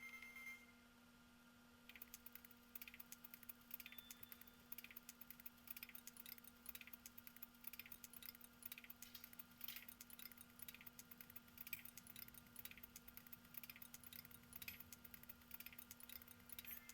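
Faint, rapid, irregular clicking of computer keys and buttons, starting about two seconds in, over a steady low electrical hum.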